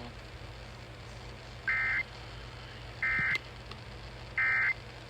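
Emergency Alert System End of Message signal: three short bursts of SAME digital data, a buzzy two-tone screech, spaced about a second and a half apart, marking the end of the alert. A steady low hum and hiss from the broadcast run underneath.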